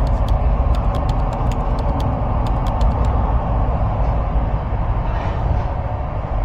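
Bergensbanen passenger train running with a steady rumble. A quick series of light clicks and rattles comes in the first three seconds.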